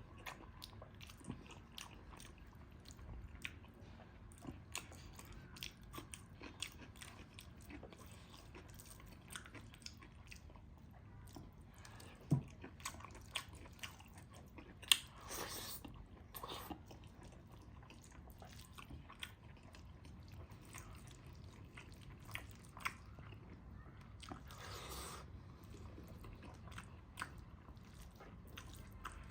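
Close-up eating sounds: steady chewing with many small wet clicks and occasional crunches, as dhido, curry and pickled radish are eaten. A couple of short, louder breathy rushes come midway and near the end.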